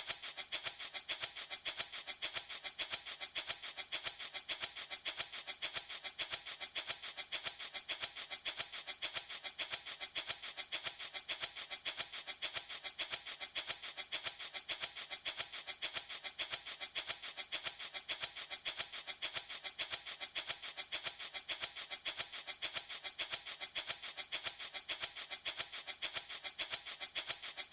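Handmade rattle shaken in a steady, even rhythm, each stroke a crisp, high-pitched rattle, used as a soothing sleep sound for infants.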